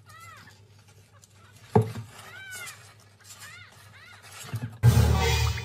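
Newborn kitten mewing: four or five short, high calls that rise and fall in pitch, with a sharp click a little under two seconds in. Near the end a loud burst of noise cuts in.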